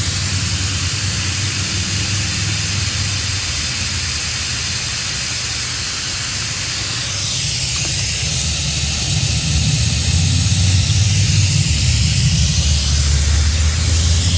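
Steady hiss of pressurized nitrogen escaping through a still-leaking brazed joint on an AC suction line, foaming through leak-detection solution, with a low rumble underneath; it grows a little louder in the second half.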